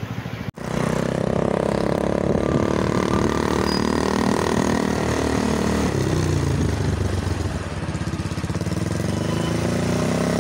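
Motorcycle engine running while riding, its pitch shifting with the throttle and dropping about six seconds in as it slows. The sound cuts out for an instant half a second in, then comes back at full strength.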